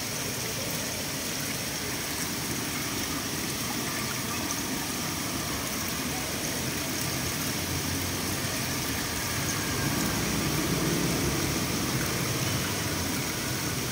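Pond fountain water splashing and churning steadily around a clear dome, a continuous hiss of falling water with a low rumble that swells about ten seconds in.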